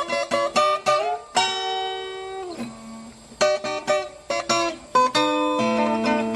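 Instrumental viola caipira music: quick runs of plucked notes, then a chord left ringing and dying away from about a second and a half in. Picked notes return, and a strummed chord over a low bass line is held near the end.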